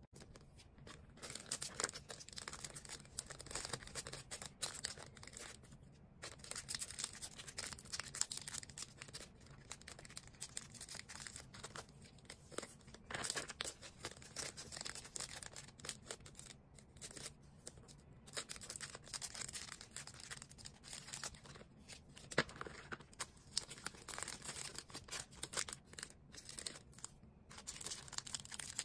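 Hands packing orders: plastic packaging crinkling and rustling, with tearing sounds and many quick crackles and taps, pausing briefly now and then.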